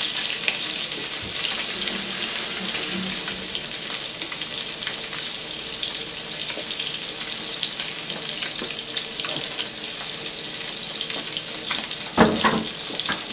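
Skin-on red snapper fillet frying skin-side down in hot grapeseed oil in a nonstick pan: a steady hiss of sizzling, with a brief louder noise near the end.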